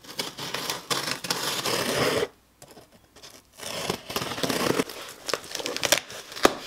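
Scissors slitting the packing tape along a cardboard box's seam, the tape tearing and crackling, in two stretches with a short pause about two seconds in. A sharp click near the end.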